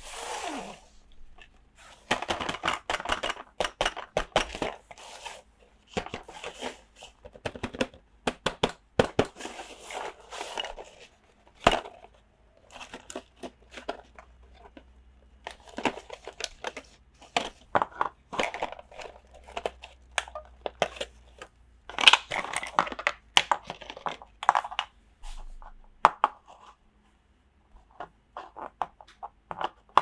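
Toy packaging being opened and handled: irregular crinkling and tearing with many sharp little clicks and taps.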